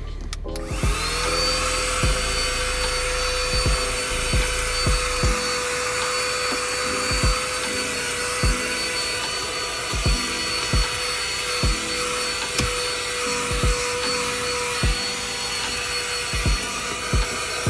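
Portable 3-in-1 vacuum cleaner switched on and running: its motor starts about half a second in and settles into a steady whine with a rushing hiss of suction. Short low thumps recur every second or so.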